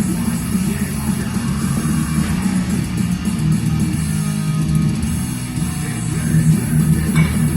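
Background music: guitar-driven rock, loud and continuous.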